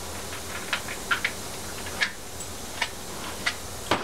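Light clicks and taps of small metal engine parts and hand tools being handled on a workbench during an outboard teardown, about six separate clicks spread unevenly, over a steady low hum.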